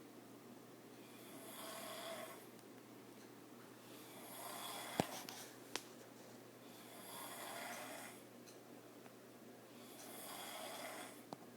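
A person asleep and snoring: four snores about three seconds apart, each about a second and a half long. Two sharp clicks come about five seconds in, and a fainter one near the end.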